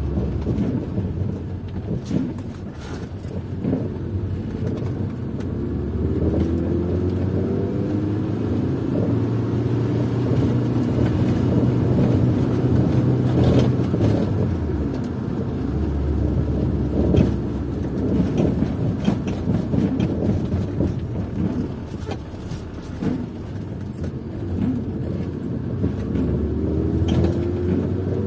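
Car engine and road noise heard while driving, the engine's pitch rising as it accelerates a few times, with scattered light clicks.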